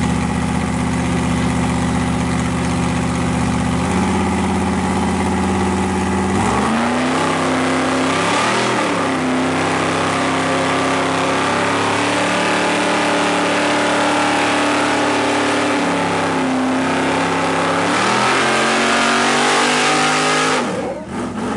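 Truck engines held at high revs under full load as a big Ford mega truck and a Dodge pickup pull against each other, their pitch stepping up and down several times. The revs cut off suddenly near the end.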